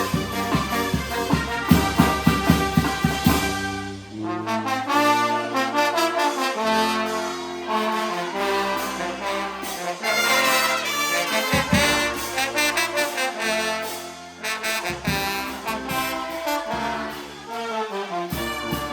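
Charanga brass band playing an EDM tune: trumpets and trombones over a drum beat. About four seconds in the drums drop out, leaving held brass chords over long low bass notes.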